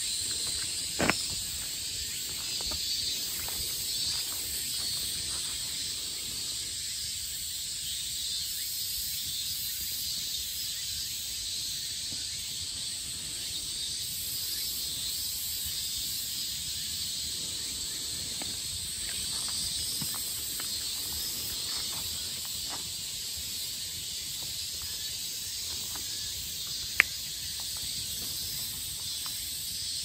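Steady, shimmering chorus of insects calling in woodland, with a few sharp clicks, the loudest a single snap about 27 seconds in.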